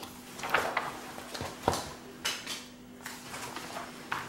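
Paper rustling and swishing in several short strokes as the glossy pages of a sticker album are turned and handled, with a light sharp tap about a second and a half in.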